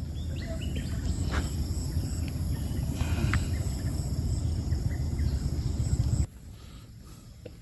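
Wind buffeting the microphone in a heavy, uneven rumble over steady insect trilling, with a few short high chirps. The rumble cuts off suddenly about six seconds in, leaving the insects.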